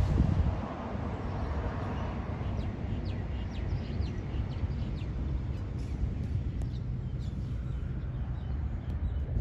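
Small birds chirping in short, high notes several times over a steady low outdoor rumble, with a louder swell of the rumble in the first second.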